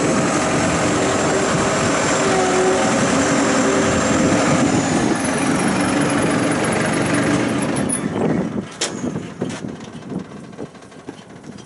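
Cummins turbo diesel engine running steadily, with a high whine that glides down about five seconds in. The engine shuts off about eight seconds in, leaving a few faint clicks.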